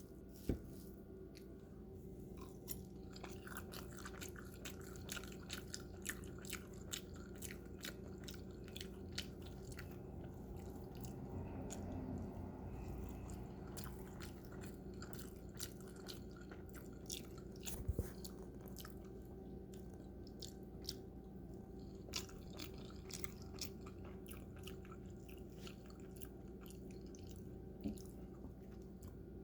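A person chewing and biting crispy food close to the microphone, a run of small crunches and wet mouth clicks, over a steady low hum.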